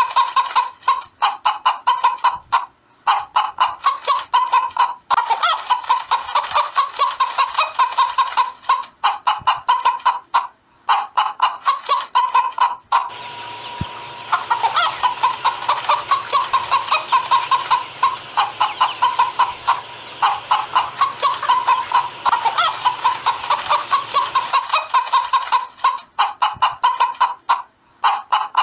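Hens clucking and cackling: rapid runs of repeated calls broken by short pauses. For about ten seconds in the middle a low hum runs underneath, and the calls come thicker.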